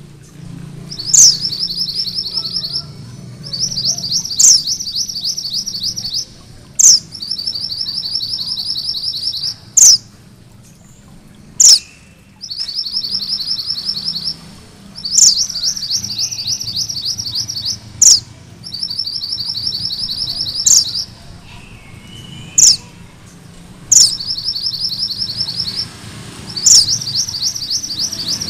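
Male mountain minivet singing. A sharp, high, sweeping whistle comes every few seconds, and most are followed by a fast rolling trill of repeated notes that lasts one to two seconds.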